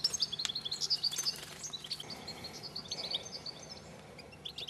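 European goldfinches twittering: quick, high chirps and trills, busiest in the first two and a half seconds and sparser after, with a couple of light clicks in the first second or so.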